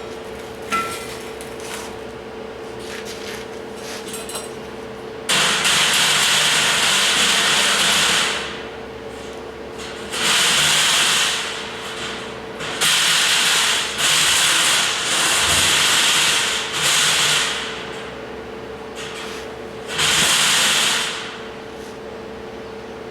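A power tool working on the steel of a headache rack in six hissing bursts of one to three seconds each, the first starting about five seconds in and the last near the end, over a steady hum.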